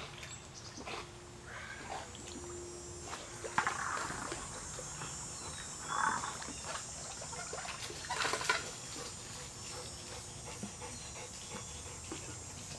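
Water splashing as a man and a black Labrador swim in a pool and the dog climbs out by the steps, with a few louder splashes about four, six and eight seconds in.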